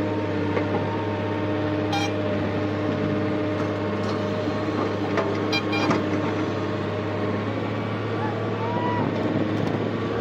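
JCB JS175 excavator running steadily under load while digging soil and swinging to dump it into a truck, with a few sharp knocks about two seconds in and again near six seconds.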